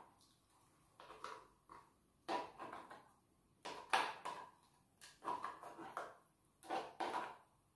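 Short bursts of close-up eating sounds: a metal spoon scraping crab fat and meat out of a crab's top shell, mixed with chewing and lip smacks, coming every second or so.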